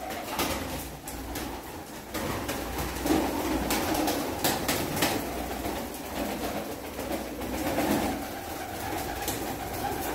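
Domestic pigeons cooing continuously, with repeated sharp wing claps and flapping as birds take off and fly around them.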